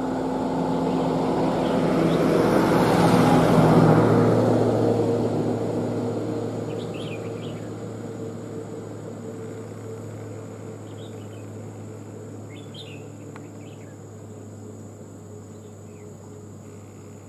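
A motor engine passing by: a low steady hum that swells to its loudest about three and a half seconds in, then slowly fades away. A few short bird chirps sound over the fading hum.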